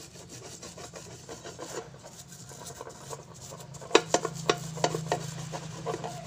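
Happycall frying pan shifted and turned by hand on a hard floor, its rim rubbing and scraping on the surface. A cluster of sharp clicks and knocks comes about four to five seconds in.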